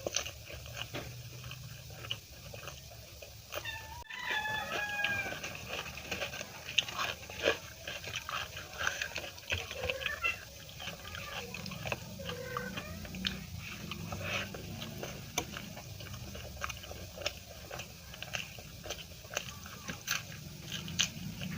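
Close-miked eating: rapid wet mouth clicks and smacks from chewing soft food such as puri with gravy, with a few short pitched mouth or throat sounds about four seconds in.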